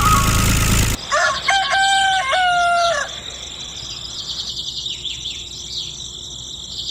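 A rooster crows once, starting about a second in, in a single stepped cock-a-doodle-doo. Small birds then chirp repeatedly. It opens with the last second of a loud steady noise that cuts off abruptly.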